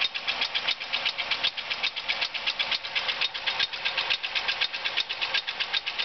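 1997 Chevrolet Monte Carlo 3.1 L V6 running with a rapid, even valvetrain ticking, about eight ticks a second. The tick began after an intake gasket change, and the owner is pretty certain it comes from lifters he left a little loose on reassembly.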